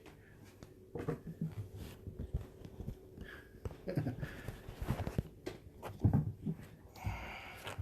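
Irregular soft bumps, knocks and rustling close to the microphone as a kitten moves about and is handled, with a brief louder rustle about seven seconds in.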